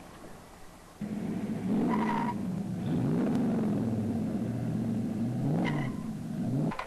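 A 1966 Chevelle SS's 396 cubic inch big-block V8 launching off the drag-strip start line about a second in and accelerating hard. The engine pitch climbs and drops several times as the four-speed is shifted up through the gears.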